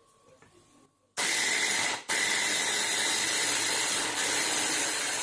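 Hand blender with a chopper bowl attachment running, chopping pieces of horseradish root with tomato. It starts about a second in, stops for a moment near two seconds, then runs steadily again.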